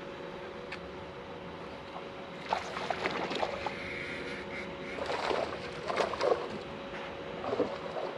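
Steady hum of a boat's electric trolling motor, with irregular water splashing from about two and a half seconds in, loudest around the middle and again near the end.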